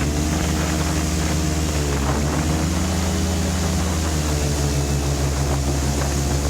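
Jet boat engine running at cruising speed, a steady note that dips briefly about two seconds in and comes back up.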